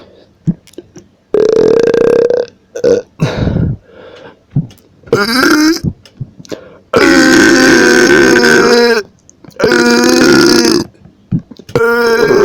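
A man burping repeatedly: about six loud, pitched burps with short gaps between them. Several are drawn out, the longest lasting about two seconds around seven seconds in.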